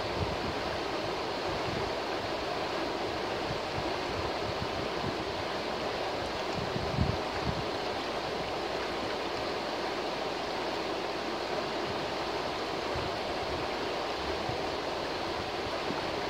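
A shallow river rushing steadily over rocks in fast riffles, a constant even roar of water. A couple of low thumps stand out about seven seconds in.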